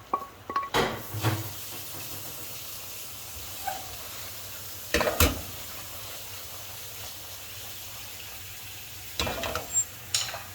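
Noodle and vegetable stir-fry sizzling steadily in a hot pan. A utensil stirs and scrapes the pan in three short bouts: near the start, about halfway through and near the end.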